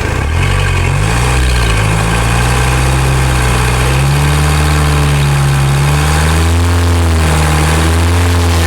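Isuzu MU-X turbodiesel engine being revved repeatedly in short and longer blips, its pitch rising, holding and falling, while it is checked for a turbo noise. The engine note sounds normal, and the noise being chased is not called out.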